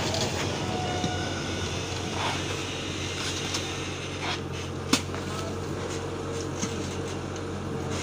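Kubota combine harvester running steadily, its engine and threshing machinery giving a constant hum. A few light clicks sound over it, and one sharp knock comes about five seconds in.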